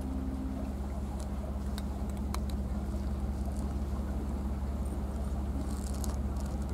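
Cats crunching dry kibble from plates, heard as scattered faint clicks, over a steady low hum that is the loudest sound throughout.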